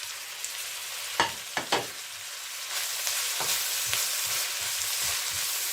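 Chopped vegetables sizzling as they sauté in hot oil in a wok, with a few sharp clicks a little after a second in. The sizzle grows louder near the middle.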